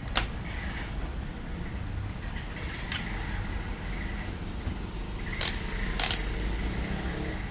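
Four short sharp clicks and taps of small tools and test probes being handled on a TV circuit board, the last two close together, over a steady low background hum.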